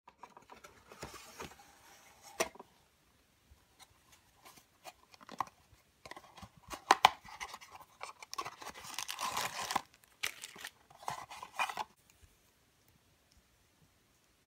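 Small cardboard box being handled and opened by hand: rustling and scraping of card and paper in uneven bursts, with a couple of sharp clicks about two and a half and seven seconds in as flaps and tabs snap.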